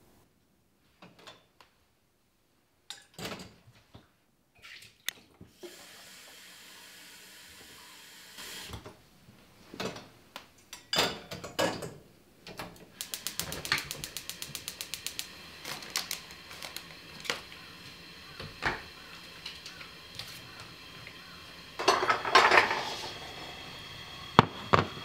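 Kitchen handling sounds at a gas hob: a saucepan and utensils knock on the stove, then a quick run of sharp clicks about thirteen seconds in, like a gas burner's igniter sparking. A louder rustling burst comes near the end.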